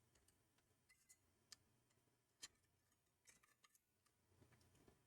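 A handful of faint, scattered clicks from a screwdriver working the screws of a CPU heatsink as they are loosened, the loudest about two and a half seconds in; otherwise near silence.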